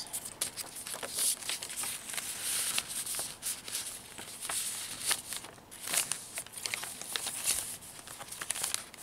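Paper rustling and crinkling as coffee-dyed tags, ephemera and journal pages are handled and turned, with irregular light flicks and taps.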